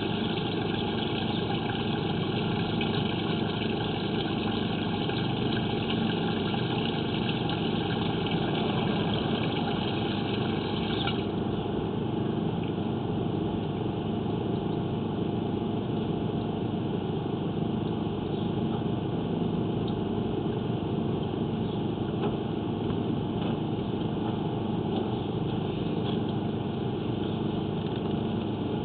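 A small engine runs steadily at an even idle throughout. Water hisses in the upper range until it cuts off sharply about eleven seconds in, when the water running into the drain is shut off.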